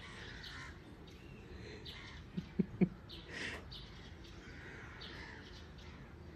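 Birds chirping and calling in the background, with three short low thumps a little over two seconds in.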